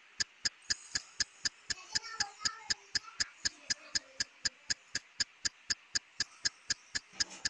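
Fast, perfectly even ticking, about four sharp ticks a second, like a clock.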